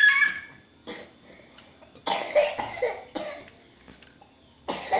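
Coughing: several short, harsh coughs in separate bouts, one about a second in, a cluster around the middle, and another near the end.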